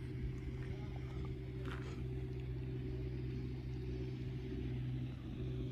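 Motorboat engine running steadily on the lake, a low, even drone.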